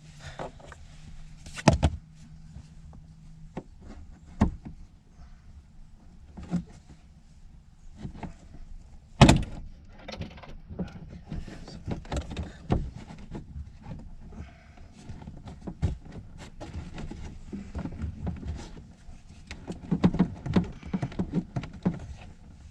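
Plastic interior trim panels and retaining clips in a Buick Regal's rear seat area being pried and handled: an irregular string of clicks, knocks and thuds, the loudest knock about nine seconds in. A low steady hum stops a few seconds in.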